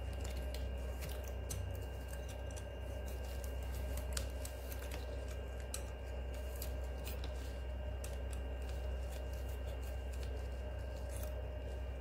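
Utility knife blade cutting the stiff spines off a golden barrel cactus (Echinocactus grusonii): a run of small, irregular clicks and snaps. A steady low hum runs underneath.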